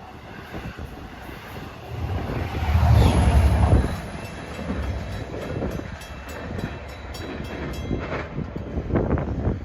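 Long Island Rail Road diesel-hauled passenger train passing at speed, with a DE30AC diesel locomotive at each end. A heavy locomotive rumble peaks about three seconds in, then the wheels click rapidly over the rail joints as the cars go by, with a further loud surge near the end.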